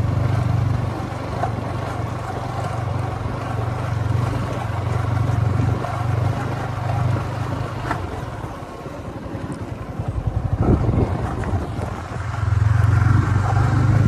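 Motorcycle engine running at a steady low drone while riding. The engine note drops back for a few seconds past the middle, as if the throttle is eased, and then picks up again near the end.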